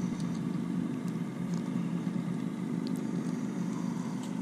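Steady low hum of a motor running at idle, with a few faint clicks from handling while a small yellow perch is unhooked.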